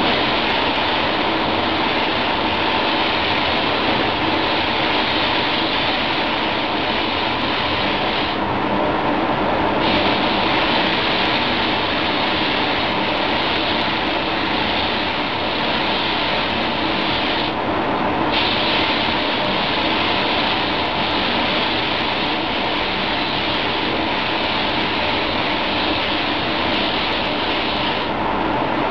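SATAjet 4000 paint spray gun hissing steadily with compressed air as it sprays, cutting out for a moment three times as the trigger is let go between passes. A steady hum of the spray booth's ventilation runs underneath.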